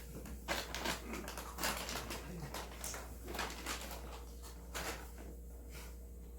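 Irregular light clicks and clatter, like dishes, bowls and utensils being handled, over a steady low hum.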